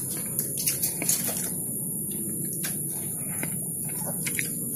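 Quiet background ambience: a steady high hiss and low hum, with a few faint scattered clicks and taps.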